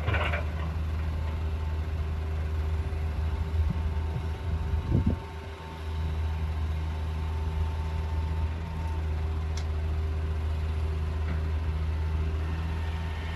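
Heavy diesel engine idling steadily at low revs, with a short clatter right at the start and a few low knocks about five seconds in.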